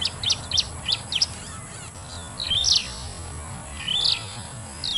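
A small bird chirping: a quick run of short, sharp chirps about six in a second and a half, then two longer warbling phrases.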